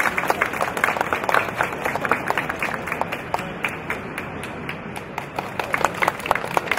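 Audience applauding with many irregular hand claps, thinning out about halfway through and picking up again near the end.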